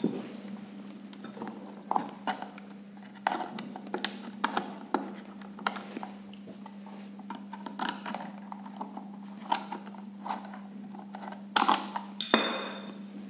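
Scattered small clicks and knocks of a plastic and metal door-entry outdoor panel and its wires being handled and pressed into place on a table, with a louder clatter about twelve seconds in, over a steady low hum.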